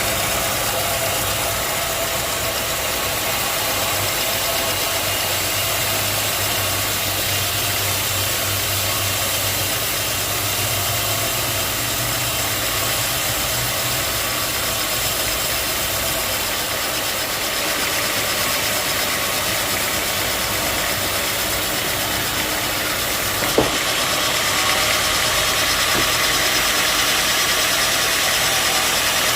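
Sawmill engine running steadily. A sharp click comes near the end, after which the running sound is a little louder and brighter.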